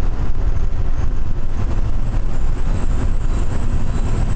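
Denver Airport's rubber-tyred automated people-mover train running through its tunnel, heard from inside the car: a steady, loud low rumble of the running gear with an even hiss of travel noise over it.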